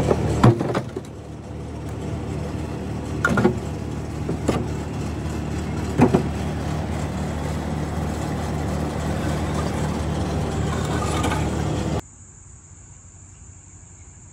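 An engine running steadily with a few sharp knocks over it, then stopping abruptly about twelve seconds in. After that only a faint, steady high-pitched whine remains.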